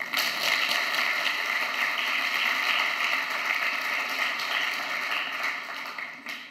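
Audience applauding, starting suddenly and dying away near the end.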